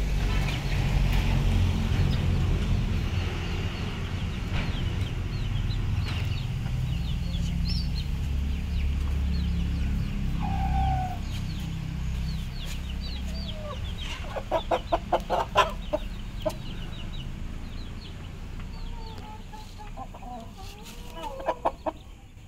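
Chickens clucking, with many short high calls throughout and a quick run of about a dozen clucks about two-thirds of the way through.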